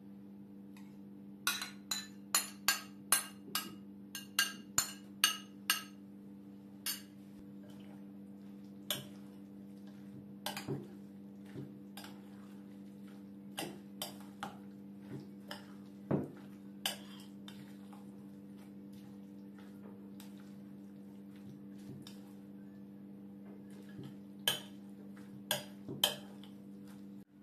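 Metal spoon clinking against a glass mixing bowl and dish while a yogurt salad is mixed: a quick run of taps in the first few seconds, then scattered clinks, a few louder near the end. A steady low hum runs underneath.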